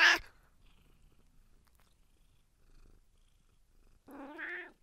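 Domestic cat meowing twice: the tail of a loud meow that ends just after the start, then a short meow about four seconds in.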